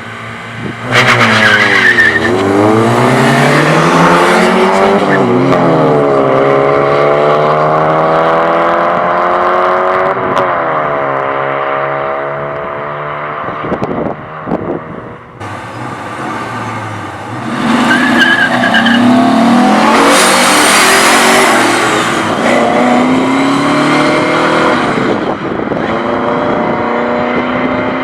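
A car engine revving hard with tyres squealing and skidding, in two long bouts, the engine pitch repeatedly climbing and falling: cars doing burnouts or launching at a street race.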